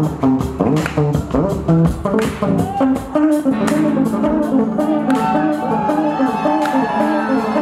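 Live band playing: a busy electric bass solo line of quick plucked notes over a drum kit keeping a steady beat, with electric guitar alongside.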